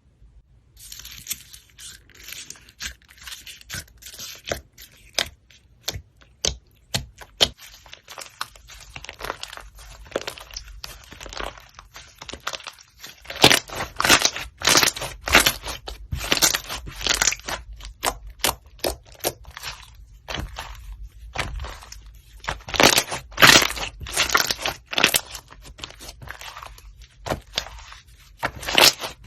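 White slime being squeezed and pressed by hand, giving a run of quick crackling clicks and pops that grow denser and louder about halfway through.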